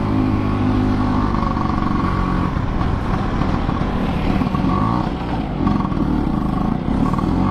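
Two-stroke Vespa scooter engine pulling in third gear with a passenger aboard, running steadily under load, its note rising and falling slightly.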